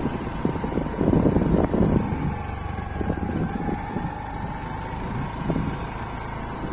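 Motorbike riding along a rough, potholed road: a steady engine tone with wind rushing over the microphone, broken by a few knocks and rattles from bumps, the loudest about a second in.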